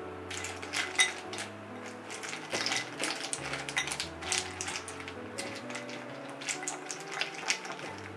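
Chopped milk chocolate pieces clattering against a glass bowl as a silicone spatula stirs them, in many quick, irregular clicks and scrapes; the chocolate is still mostly solid partway through microwave tempering. Soft background music plays underneath.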